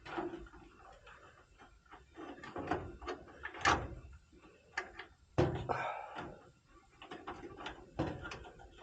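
Scattered clicks, taps and light knocks of hands handling wires and small parts, with a couple of louder clunks around the middle.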